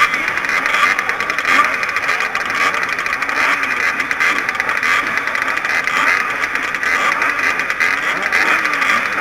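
Several small two-stroke dirt-bike engines idling and being blipped together at the start gate.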